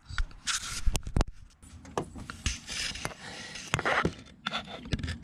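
Irregular rubbing and scraping with scattered sharp clicks and knocks: handling noise as the camera is worked down past hoses and parts into the engine bay.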